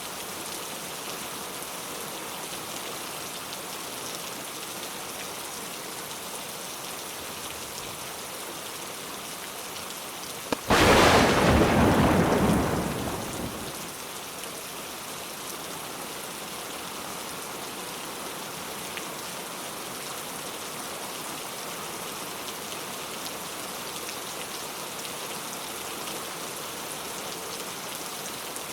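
Steady heavy monsoon rain falling. About ten seconds in, a sudden loud clap of thunder rumbles on and fades away over about three seconds.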